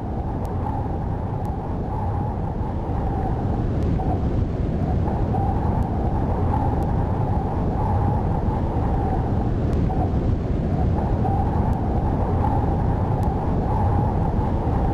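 Steady low rumble of wind with a faint wavering howl and a few faint ticks, swelling slightly a few seconds in.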